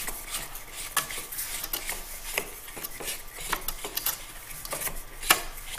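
Plastic clicking and rubbing as the drive assembly of a Clack WS1 water softener valve is unscrewed by hand from the valve body: a string of irregular light clicks.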